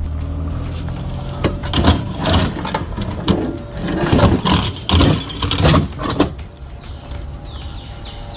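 Old sheet-metal evaporator coil being pulled out, clattering and scraping in a run of loud, irregular bangs for several seconds, over a steady low motor hum.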